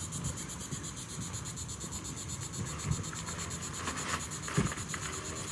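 Kite canopy fabric rustling and crinkling as the kite is folded by hand, with a few louder crinkles in the second half, over a low rumble of wind on the microphone.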